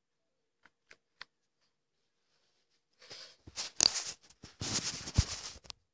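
Handling noise on the recording microphone: a few faint clicks, then from about three seconds in loud scratchy rubbing and knocks as the recording device is moved and brushed against.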